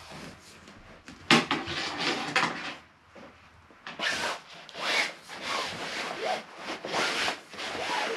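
Fabric of a Marchway ultralight folding camping cot rubbing and scraping as its long side pole is worked through the fabric sleeve. There is one scraping burst about a second in, then a run of repeated strokes from about four seconds in.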